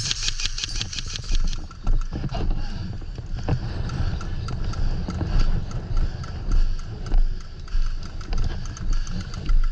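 Footsteps of a person walking over rough ground, a thump about every two-thirds of a second, over a steady rumble of wind and movement on the microphone. A rapid run of fine clicks lasts through the first second and a half.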